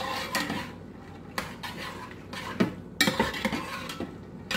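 A spoon stirring and scraping around inside a pot of black beans, with irregular clinks and scrapes against the pot, the loudest about three seconds in.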